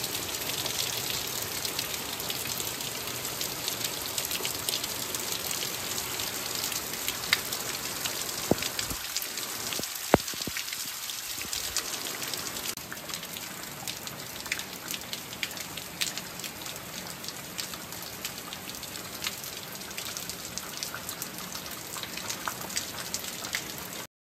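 Steady rain falling, with many sharp individual drop hits ticking through it; it cuts off suddenly near the end.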